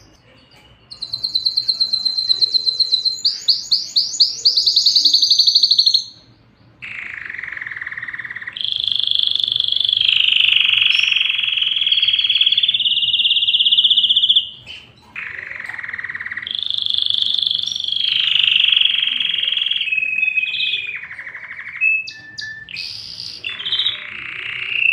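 Domestic canary singing: fast, high trilled phrases at first, then long rolling trills lower in pitch, broken by two short pauses.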